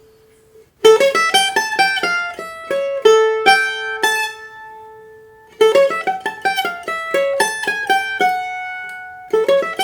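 Brazilian bandolim (mandolin) plucked in short melodic phrases of quick notes, each phrase ending on a note left ringing before the next begins. It starts faintly, then the first phrase comes in sharply about a second in.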